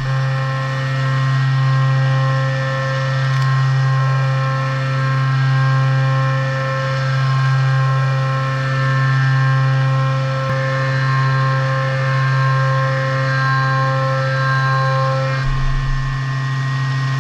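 CNC mill spindle turning a quarter-inch cutter at 8,000 RPM, feeding at 80 inches a minute through pure iron round bar. It makes a steady hum with higher whining tones, and the loudness swells and fades about every two seconds as the tool works its passes.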